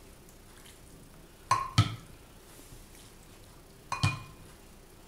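A ladle knocking against a ceramic bowl while scooping hot chickpea broth: two short clinks close together about a second and a half in, and one more about four seconds in.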